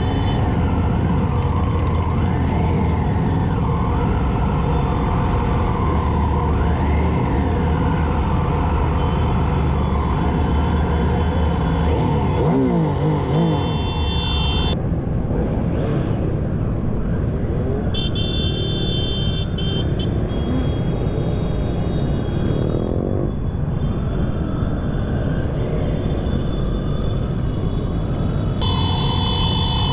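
Many motorcycle engines running in a slow-moving mass ride, with pitch glides from engines revving in the first several seconds. A steady high tone sounds in several separate stretches, near the start, about halfway through, a few seconds later and near the end.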